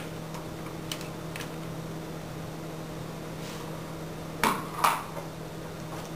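Light clicks and two sharper clacks, about four and a half and five seconds in, of cable connectors being handled and plugged into a computer's rear ports, over a steady low hum.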